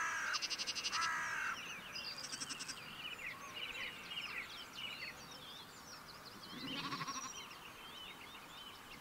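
Sheep and lambs bleating: several bleats in the first second and a half, and a lower one about seven seconds in, with birds chirping and singing in the background.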